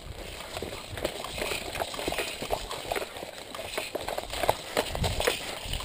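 Footsteps crunching through dry grass, an irregular string of steps with rustling.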